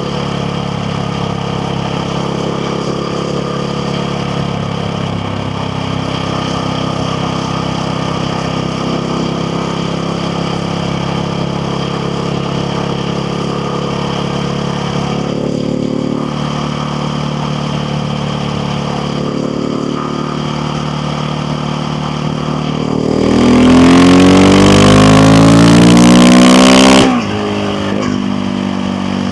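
KTM 690 Duke R's single-cylinder engine running steadily at low revs. About 23 s in the throttle opens and the revs climb loudly for about four seconds, then drop off suddenly, as at a gear change or the throttle closing. Near the end the revs begin to climb again.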